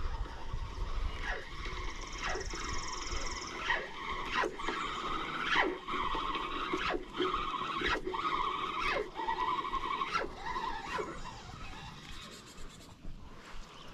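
Spinning reel being cranked on a retrieve: a wavering gear whine that rises and falls with the cranking speed, cut by short sharp swishes about once a second as the rod is jerked to work a slashbait like a jerkbait. The whine dies away near the end.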